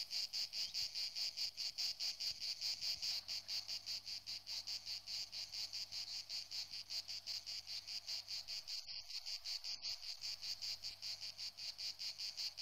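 Insects chirring high and steady in an even rapid pulse, about seven pulses a second.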